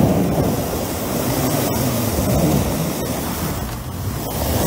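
A 4x4 pickup truck running as it ploughs slowly through deep snow, with the engine's low hum under a steady rushing noise of tyres churning snow.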